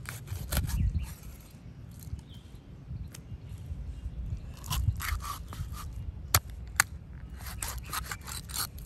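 A large knife slicing rohu fish into steaks on a wooden chopping block: scraping strokes as the blade works through the scaly skin and flesh, in short bunches, with two sharp knocks of the blade on the wood close together past the middle.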